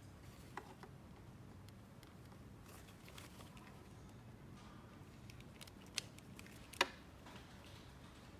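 Light taps and clicks of small plastic toy pieces being handled. There is a sharper click about half a second in, and two louder clicks about six seconds in, the second the loudest.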